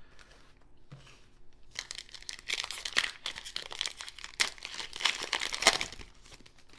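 Foil wrapper of a trading card pack being torn open and handled, a dense crinkling crackle that starts about two seconds in and dies away near the end.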